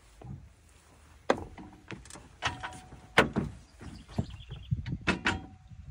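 Footsteps and knocks as a person climbs up into a pickup truck bed and walks across the bed mat: a string of irregular thuds, with a faint metallic ring twice.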